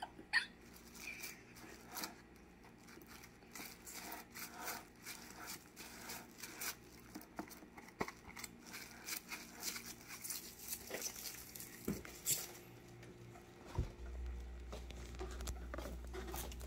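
Plastic cling wrap crinkling and crackling in small irregular bursts as it is pressed and smoothed around a bowl. Near the end a knock, then a low steady hum.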